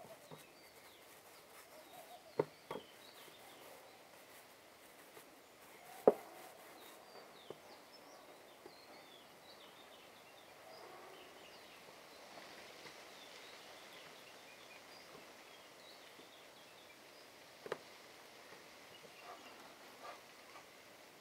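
Quiet outdoor ambience with small birds chirping now and then, and a few sharp taps of hands against a steel tray as dough is rolled and pinched apart, the loudest about six seconds in.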